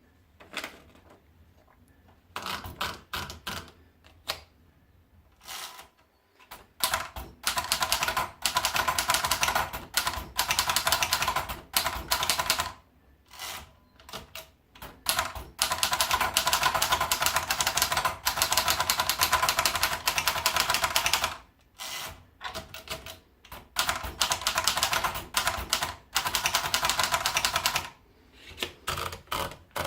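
Hermes Baby portable manual typewriter being typed on: scattered keystrokes at first, then long runs of fast clattering keystrokes through the middle, thinning out again near the end.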